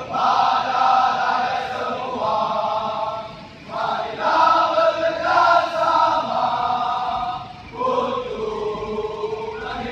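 A large group of marching recruits singing a marching song together in unison, in long held notes with short breaks between phrases.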